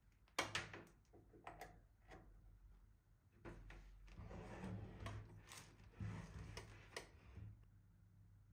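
Handling noise: a few sharp clicks and knocks in the first two seconds, then about four seconds of rustling and scraping with more clicks, fading out near the end, over a faint steady hum.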